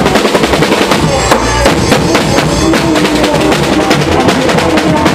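Live dangdut band music with a busy drum rhythm, and a rapid drum fill from about one to three seconds in.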